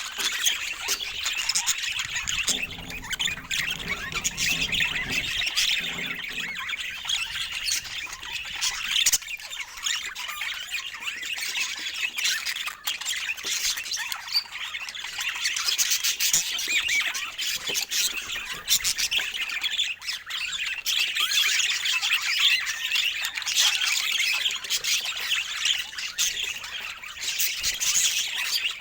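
A group of budgerigars chattering and warbling without a break, with harsh squawks mixed into the chatter.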